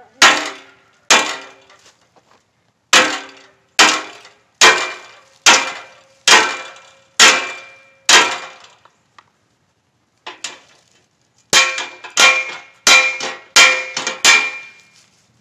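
Short sledgehammer striking a rusty steel hay ring panel, each blow giving a ringing metallic clang. About nine blows come roughly a second apart, then after a short pause about eight quicker ones.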